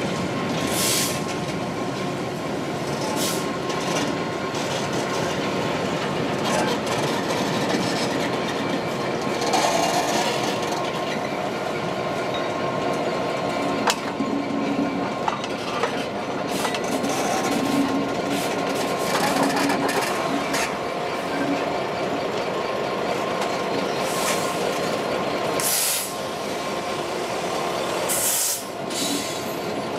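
EWS Class 66 diesel-electric locomotive, with its two-stroke V12 diesel, running as it moves hopper wagons past and then passes close by on its own. The engine sound is steady, with a few sharp clicks of wheels over the rails about halfway through and brief higher hissing or squealing bursts now and then.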